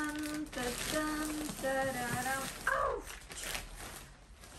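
Plastic packaging bag crinkling and rustling as a quilted puffer jacket is pulled out of it, with a woman's voice in a few short held tones over it.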